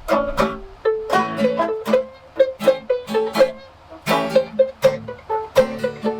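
Instrumental break of acoustic plucked string instruments: strummed chords and a melody of short picked notes in a steady rhythm, with no singing.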